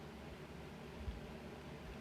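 Faint steady hiss over a low rumble, with one soft low bump about a second in.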